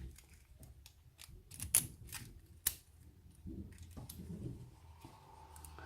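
Small metal clicks and scrapes of a lock cylinder and a thin metal shim being handled as the cylinder is shimmed open, with a few sharp ticks between one and three seconds in.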